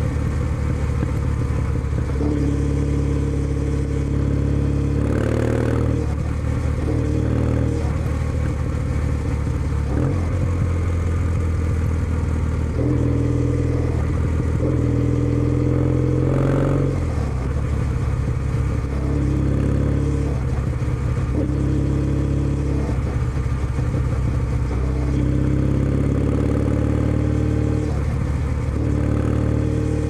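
Kawasaki W650's air-cooled parallel-twin engine running under way through a POSH W1 aftermarket full exhaust, its pitch stepping down and climbing back up several times as the engine speed changes.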